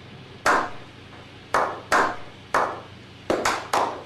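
Hand claps with a short ringing tail: single claps spaced about a second apart, then coming quicker near the end, about eight in all.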